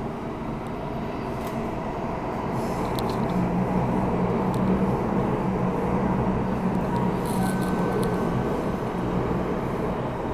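Singapore Downtown Line metro train running through a tunnel, heard from inside the carriage: a steady rumble and rush of wheels on rail that grows louder a few seconds in and then holds.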